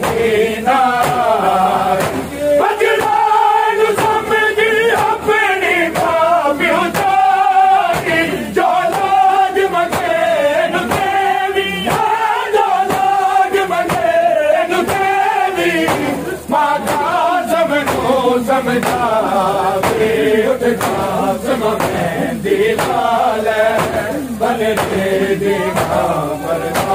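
A group of men chanting a nauha in unison, long wavering sung phrases led by voices, over a steady beat of sharp slaps, the chest-beating of matam.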